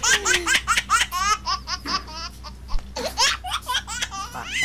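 A woman laughing hard, in a long run of quick, high-pitched bursts.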